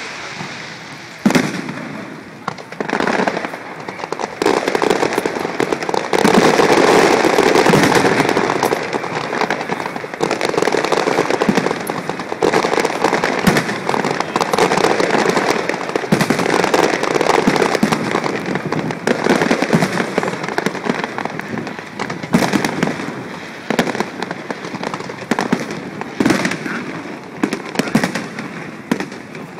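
Fireworks display: aerial shells bursting one after another, a few separate sharp bangs near the start building to a dense, loud barrage through the middle, then thinning to scattered bangs toward the end.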